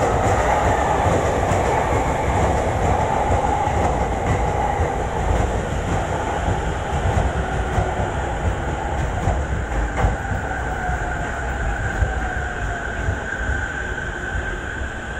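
Chuo-Sobu Line electric commuter train braking into the station: rail and wheel noise with a motor whine falling slowly in pitch as it slows, a higher tone coming in during the second half, and a couple of single knocks from the wheels.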